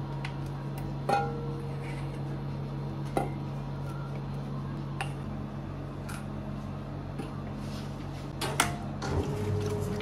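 A stainless steel bowl clinks against the steel bowl of a spiral dough mixer a few times as butter is tipped in, each clink ringing briefly over a steady hum. About nine seconds in, the Bongard spiral mixer starts up, adding a lower motor hum and a steady tone.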